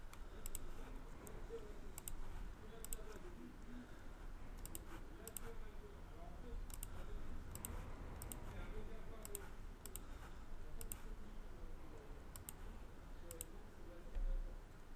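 Computer mouse button clicking on the keys of an on-screen calculator emulator: short sharp clicks, often in pairs, about one a second at irregular spacing, over a faint low hum.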